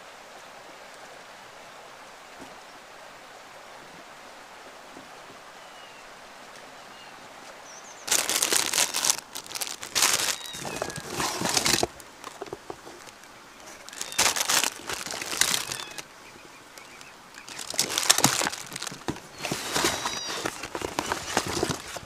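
Crinkling and rustling of plastic packaging and string lights being handled in a cardboard box, in three spells of a few seconds each after a faint steady outdoor background with a few bird chirps.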